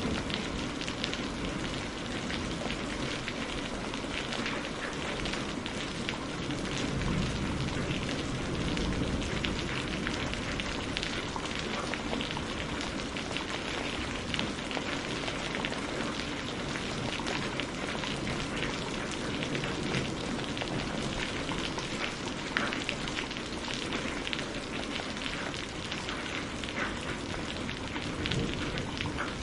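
Steady rain falling on surfaces: a dense, even hiss thick with the patter of individual drops.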